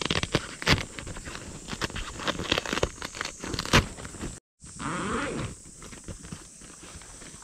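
Tent flysheet fabric rustling and crinkling as hands handle and fold it, with many sharp little crackles; after a brief drop-out, a zipper on the tent is pulled open with a short wavering buzz.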